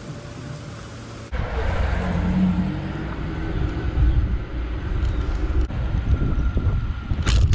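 Wind buffeting the microphone and tyre rumble while riding a mountain bike on a paved street. It starts abruptly about a second in, after a quieter stretch, and there is a sharp knock near the end.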